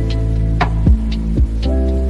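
Instrumental music between sung lines: sustained chords over a low bass, with a beat of low thuds about every half second.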